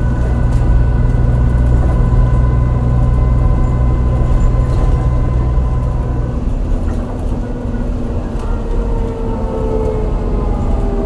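Interior sound of a MAN NL202 CNG city bus under way: the misfiring gas engine rumbles under load with a steady whine from the ZF Ecomat automatic gearbox. About six seconds in the engine note drops and the gearbox whine falls gradually in pitch as the bus eases off.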